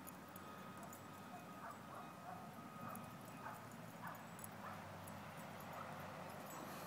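A dog whining faintly in a string of short, high squeaks, about a dozen spread over several seconds.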